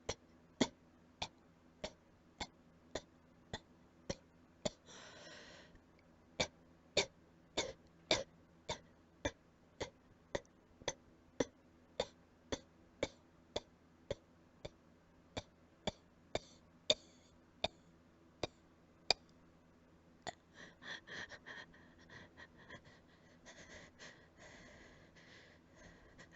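A long run of short, quiet allergy coughs, evenly spaced at a little under two a second. From about twenty seconds in they give way to rougher, irregular breathy noises.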